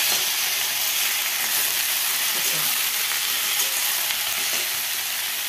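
Grated radish and radish greens sizzling in hot oil in a metal kadhai, stirred and turned over with a metal spatula; a steady sizzle.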